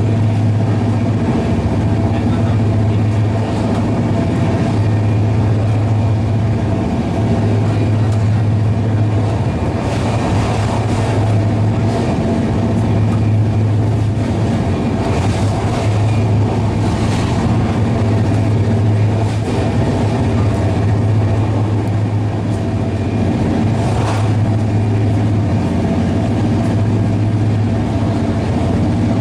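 Inside a Shatabdi Express passenger coach running at about 150 km/h: a steady loud rumble of wheels on rail under a constant low hum, with a few faint clicks and rattles here and there.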